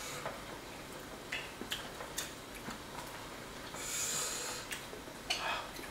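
Hot pot eating sounds: scattered light clicks of chopsticks against ceramic bowls, with a breathy hiss lasting about a second roughly four seconds in and a short breathy sound near the end.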